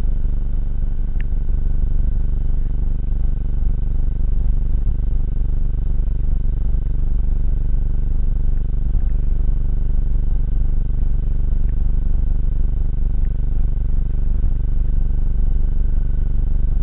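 Steady loud low rumble, with a faint steady high whine above it.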